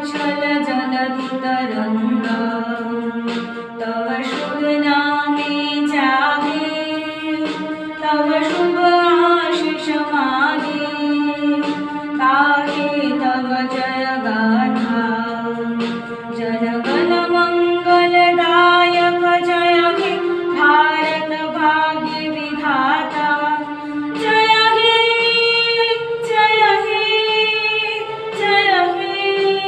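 A woman singing a slow song while accompanying herself on a portable electronic keyboard.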